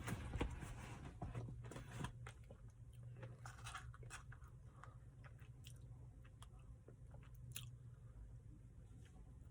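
Mouth chewing and crunching on a chocolate brownie ice cream Blizzard, with irregular crisp crunches. The crunching is densest and loudest in the first two seconds, then thins to scattered clicks.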